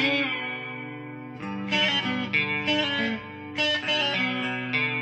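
Background music: guitar picking out sustained melodic notes.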